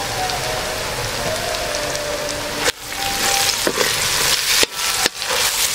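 Sliced onions and chopped ginger sizzling in hot sunflower oil in an aluminium wok. A little under three seconds in, a spatula starts stirring, and the sizzle comes in louder, uneven surges with short scrapes against the pan.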